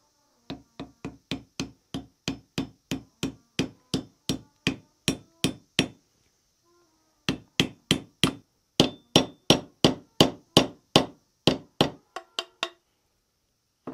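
Hammer driving a hickory wedge into the top of a cocobolo axe handle to lock the Damascus axe head on: quick, even blows about three a second, each with a short ring. The blows pause about six seconds in, then resume, the last few lighter.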